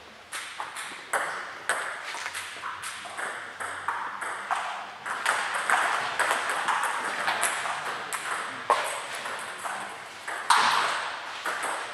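Table tennis balls clicking off rackets and bouncing on tables: irregular sharp taps from a rally and from other tables in play. A louder, noisier burst comes near the end.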